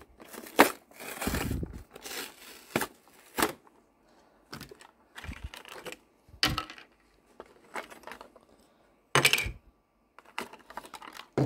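Hot Wheels Monster Trucks die-cast toy's blister-card package being torn and pried open by hand: irregular tearing, crinkling and sharp clicks with pauses between them. It is busiest in the first few seconds, with another loud tear a little after nine seconds.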